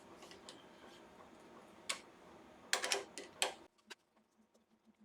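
Scattered clicks and knocks from mounting a wooden bowl blank on a woodworm screw in a lathe chuck: a single sharp click about two seconds in and a short cluster a second later. The sound then drops out almost entirely.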